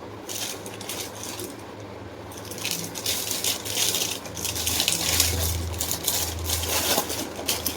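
Packaging being handled and unwrapped: a dense crinkling and rustling that starts about two seconds in and continues, with a few brief rustles before it.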